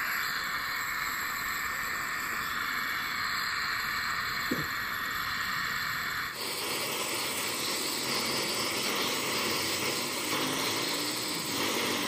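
Gas welding torch flame hissing steadily while heating a motorbike wheel's aluminium bearing housing for welding. About six seconds in, the hiss abruptly becomes louder and fuller.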